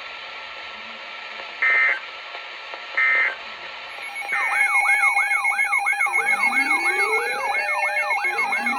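Two short bursts of Emergency Alert System digital data tones, then from about four seconds in a loud siren-like alert sound: fast repeating pitch sweeps, about two a second, over steady tones, with a slower rising whoop every couple of seconds.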